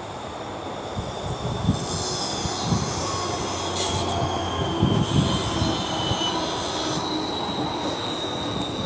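GVB metro train pulling into the platform, its wheels squealing on the rails with a high steady tone that sags slightly in pitch midway and comes back near the end. Under the squeal runs a low rumble with irregular thumps, growing louder about a second in as the train comes alongside.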